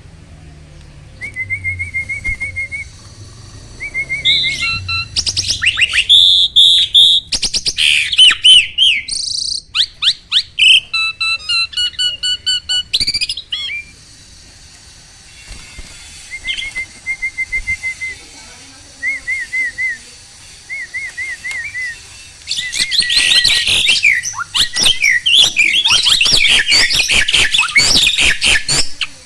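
Starling (jalak) singing a varied song: short repeated trills, loud clear whistled notes and rapid clicking, with a dense burst of loud chattering over the last few seconds.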